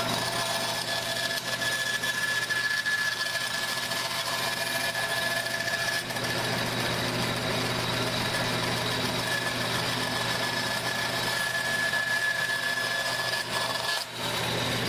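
Bandsaw running steadily, a constant motor hum with a high blade whine over it, as a thin kerfed-lining strip is fed through to cut a bevel along its edge. It dips briefly near the end.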